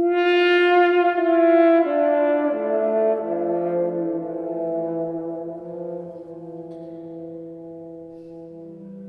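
Trombone and organ music: a loud held note that steps down through a slow descending line, with lower sustained notes building beneath it as the level fades.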